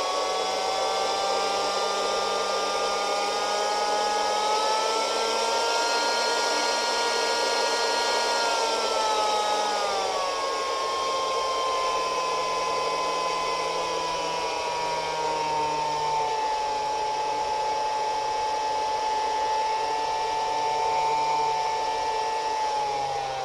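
Small electric inflator/deflator air pump running with a steady whine as its speed knob is varied to change the test pressure: the pitch rises slowly for the first eight seconds or so, drops about ten seconds in, eases lower and levels off, then falls again near the end.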